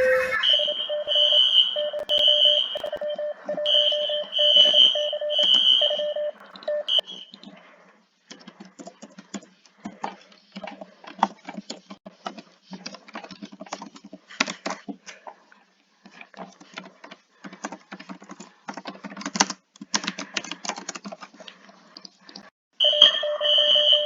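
Emergency alert alarm: a repeating electronic beep pattern on two steady tones, one low and one high. About seven seconds in the beeps stop and give way to a long stretch of irregular crackling noise, and the beeps start again near the end.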